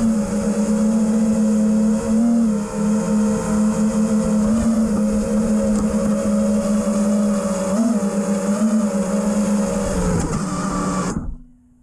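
Brushless motors of a 5-inch FPV freestyle quadcopter whining steadily with brief rises in pitch as the throttle moves. The whine sags lower and then cuts off abruptly near the end.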